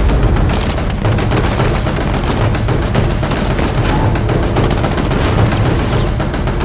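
Film battle soundtrack: rapid gunfire crackling over music, with a heavy explosion at the start.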